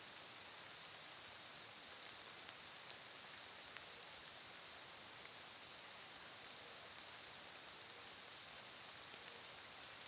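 Faint, steady hiss of light rain, with a few scattered ticks of single drops.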